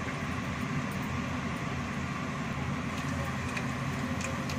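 Mustard seeds sizzling in hot oil in a pan, with the first sharp pops starting about three seconds in as the seeds begin to splutter. A steady low hum runs underneath.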